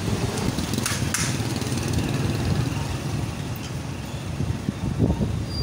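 Motorcycle engine running steadily while riding through street traffic, with two brief sharp rattles about a second in.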